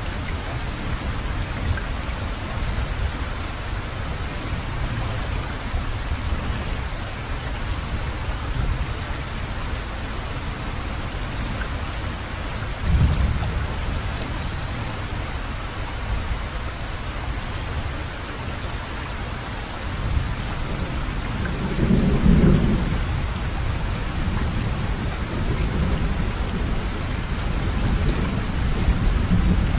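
Thunderstorm: steady heavy rain with low rolling thunder, and louder rumbles of thunder about 13 seconds in and again a little past 20 seconds.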